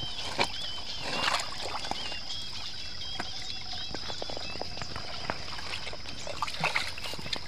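Shallow water trickling through a small field channel, with splashes and knocks as hands work a woven bamboo fish trap into the flow. A steady high-pitched tone and warbling chirps run in the background, the chirps fading about halfway through.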